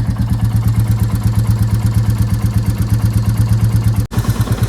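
Royal Enfield Classic 350 Reborn's 349 cc single-cylinder engine idling with a steady, even thump. The owner reports a tappet noise issue. There is a short break about four seconds in.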